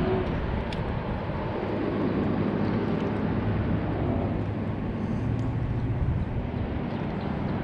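Bass boat's outboard motor running steadily at low speed, a continuous low hum.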